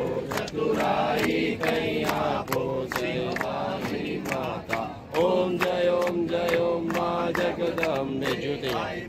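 A crowd singing a Hindu aarti together in a chant-like way, with steady rhythmic hand clapping keeping time. About five seconds in, the voices move to long held notes.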